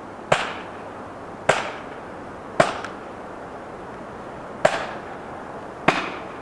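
Hammer blows driving felling wedges into a tree's cut: five sharp strikes roughly a second apart, with a longer pause midway, each ringing briefly.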